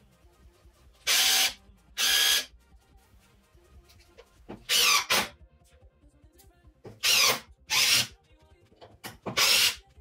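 Hitachi WH 8DB3 cordless impact driver triggered in six short bursts of about half a second each, running free with a bit in the chuck. Each time its motor whirs up and winds down.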